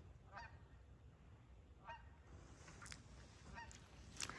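Goose honking faintly, three short calls about a second and a half apart.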